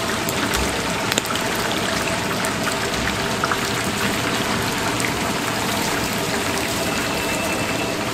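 Battered chicken feet deep-frying in a large cauldron of hot oil: a steady, dense sizzle of many tiny pops and crackles.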